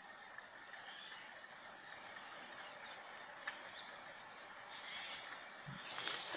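Faint outdoor ambience: a steady high hiss with a few faint chirps and a single click about three and a half seconds in.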